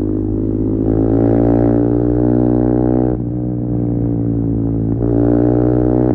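KTM Duke 390's single-cylinder engine running loud through a decatted Akrapovic slip-on exhaust, steady under throttle. It breaks off briefly about three seconds in, as at a gear change, then pulls again.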